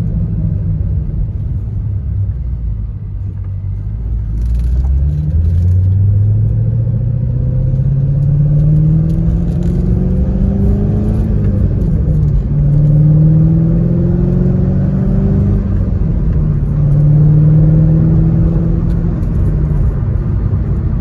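The Lingenfelter-modified 5.7-litre LS1 V8 of a 2000 Corvette coupe, heard from inside the cabin while driving. The engine note climbs in pitch three times, dropping back between climbs, as the car pulls up through the gears.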